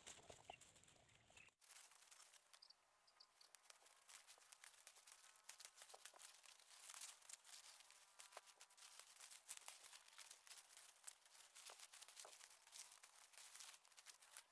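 Near silence with faint, irregular crackling and rustling.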